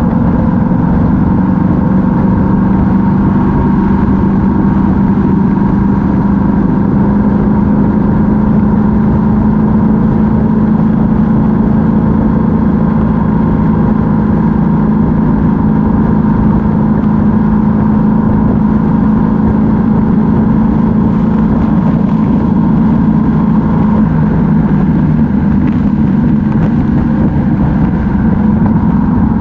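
Yamaha MT-07 parallel-twin motorcycle engine running at a steady cruise, heard from an onboard camera, with wind rushing over the microphone. The engine note shifts slightly near the end.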